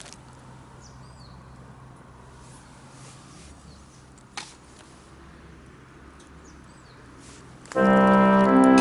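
Quiet outdoor background with faint bird chirps and a single sharp click about four seconds in. About a second before the end, loud keyboard music with held organ-like chords starts suddenly.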